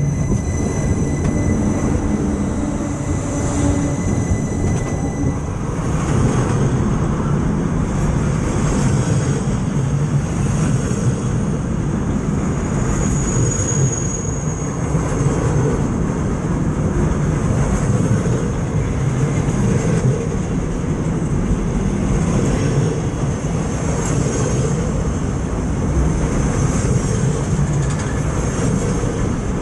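A freight train passing directly over a camera lying between the rails, first the locomotive and then its wagons: a loud, steady rumble of wheels on the rails, with a thin high ringing above it.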